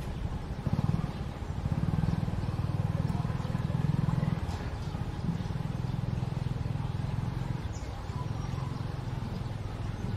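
Low rumble of a vehicle engine running, louder between about one and a half and four and a half seconds in, then steadier.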